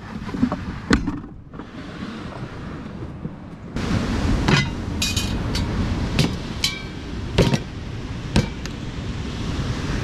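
A few wooden knocks of a drawer being rummaged. Then, over steady surf and wind noise, a series of sharp clinks and knocks, some ringing briefly, as a metal billy with a wire bail handle and other items are set down on a folding table.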